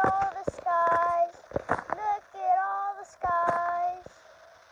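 A child singing a few short held notes, one after another, with sharp clicks between them.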